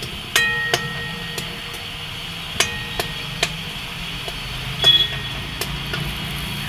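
Perforated metal ladle clanking and scraping against an iron kadhai while peanuts, green chilies, onion and curry leaves are stir-fried: about eight sharp metallic strikes, some ringing briefly, the loudest a little under five seconds in, over a steady background hiss.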